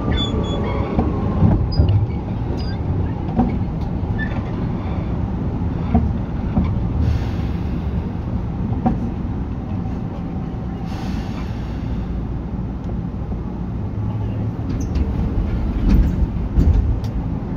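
Tokyu 8500 series electric train running, its Hitachi and Toyo traction motors' whine falling in pitch in the first second as it slows. Under it a steady rumble of wheels on rails with scattered sharp clicks, growing louder near the end.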